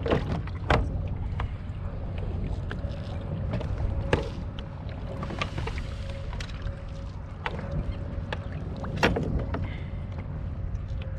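Small Suzuki outboard motor on a kayak running steadily at trolling speed, a low hum with a faint steady whine. Several sharp knocks of gear against the kayak come through it: two in the first second, one at about four seconds and one at about nine.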